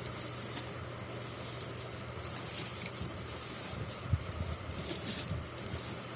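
Packaging being handled and rustled, in irregular crinkling bursts, over a low steady hum.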